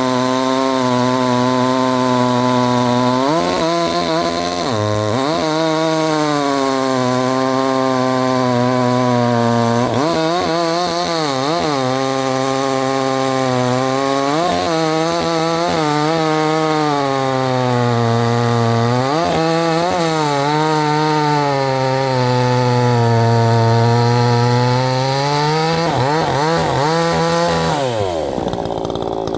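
68 cc two-stroke chainsaw running at full throttle while cutting wood. Its pitch sags repeatedly as the chain bites in and then recovers. Near the end the engine note drops away as the throttle is released.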